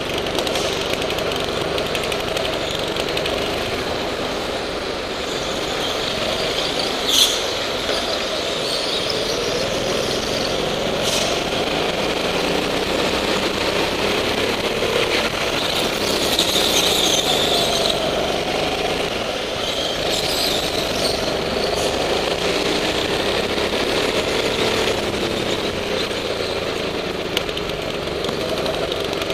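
Go-kart engine running hard around the lap, its note rising and falling through the corners, heard from the driver's seat over a steady rushing noise. A short sharp noise stands out about seven seconds in.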